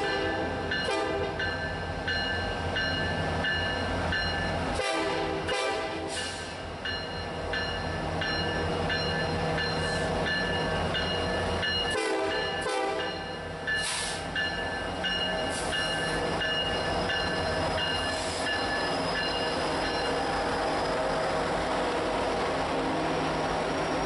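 Norfolk Southern SD70M-2 diesel locomotive leading a coal train past, sounding its chime horn in a series of long blasts, with a short break about five seconds in and another near the middle. The horn stops about four seconds before the end, leaving the rumble of the diesel engines and the rolling hopper cars.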